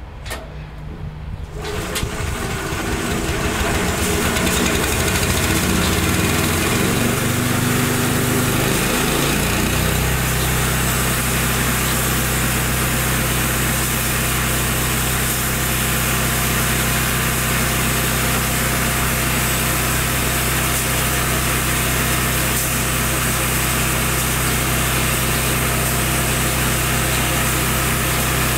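Honda GX390 single-cylinder petrol engine on a Taiga band sawmill, running up in speed with a rising pitch over the first ten seconds, then holding steady at full speed as the band blade saws through a pine log.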